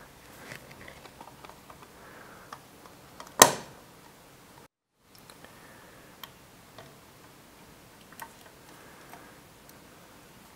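Small scattered clicks and taps of plastic parts being handled and pressed into a 1:18 scale model car body, with one sharp, much louder click about a third of the way in. The sound drops out completely for a moment just before halfway.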